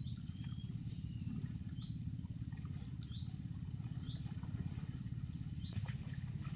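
A bird calling, about five short rising chirps spaced a second or so apart, over a steady low rumble. Faint splashing of someone wading through shallow water comes near the end.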